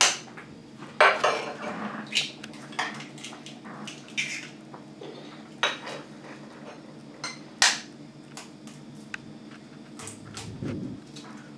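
Eggs being cracked by tapping the shells with a kitchen knife blade and emptying them into a plastic jug: a series of sharp taps and small clicks of shell, spaced a second or more apart.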